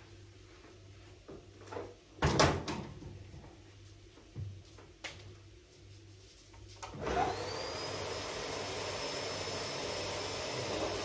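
A canister vacuum cleaner is switched on about seven seconds in. Its motor spins up with a rising whine that levels off into a steady high whine over a rush of air. Before that come a few knocks and a loud clatter about two seconds in.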